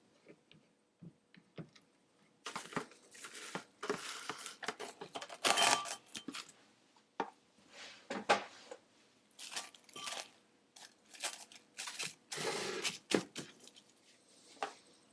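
Kitchen preparation noises: a run of rustling and scraping sounds mixed with sharp clicks and taps, strongest in the middle, with only light ticks near the start and end.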